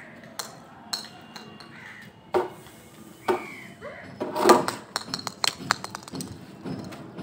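Crows cawing a few times, with a quick run of sharp clicks and knocks in the middle.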